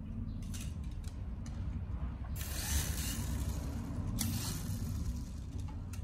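Small toy RC helicopter's electric rotor motor and plastic gears whirring as the blades spin, with a louder hiss of air in the middle.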